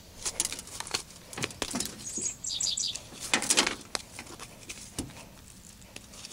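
A sturdy metal palette knife scraping dirt from the treads of a shoe sole in a series of short scrapes. A bird's quick chirping phrase sounds partway through.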